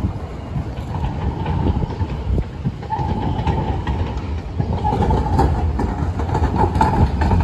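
San Diego Trolley light-rail train, a Siemens S70 car leading, rolling through the station: a steady low rumble of wheels on rail, with a steady whine from about three seconds in and clicks over the rail joints near the end.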